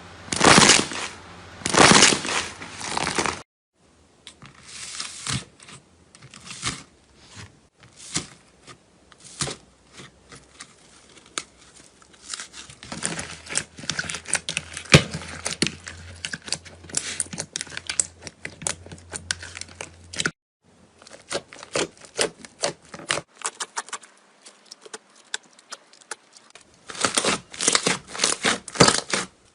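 Slime being squeezed, stretched and poked by hand, making dense crackling, crinkling clicks. It comes as several separate stretches that change abruptly, a few seconds in, about two-thirds through and near the end.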